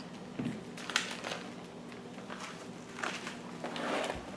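Scattered soft clicks and scrapes of ingredients being handled and dropped into a casserole dish, over a faint steady hum.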